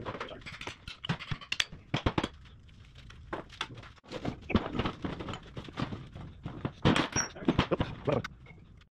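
Irregular clinks and knocks of hand tools on metal parts while the hydraulic side of an excavator final drive is fitted and bolted up.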